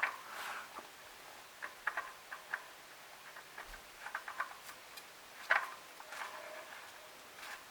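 Scattered light clicks and taps, with a few short rustles, as a spin-on oil filter is worked by hand up into place on the engine's filter adapter. The loudest click comes about five and a half seconds in.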